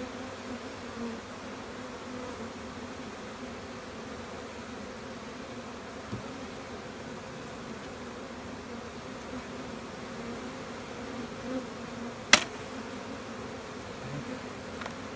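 A swarm of honeybees buzzing at an open hive box, a steady even drone. A single sharp knock about twelve seconds in.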